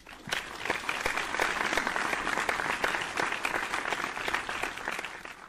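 Crowd applause: many hands clapping in a dense patter. It swells up within the first half second and fades away at the end.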